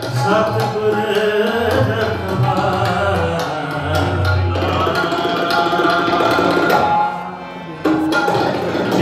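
Sikh devotional kirtan: singing accompanied by tabla, with the drum strokes steady underneath. The music briefly drops in level about seven and a half seconds in.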